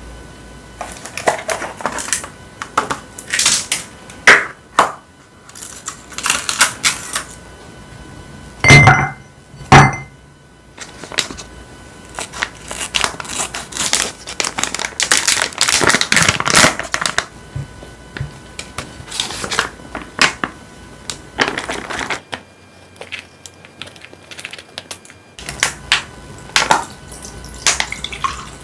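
Plastic packaging crinkling and rustling in the hands as a snack pouch is handled and opened, in irregular bursts, with two louder knocks about nine and ten seconds in.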